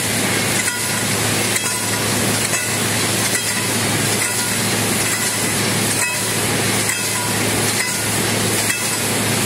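Automatic wire mesh welding machine running: a steady low hum under a dense hiss, with a short knock repeating about once a second as the machine cycles through its welds and mesh feed.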